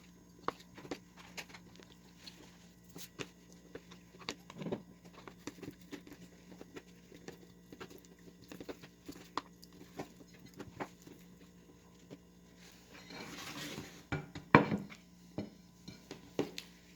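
A spoon clinking and scraping against a dish while stirring cut strawberries into Nutella, in scattered irregular taps. A short scraping swish and a few louder knocks come near the end.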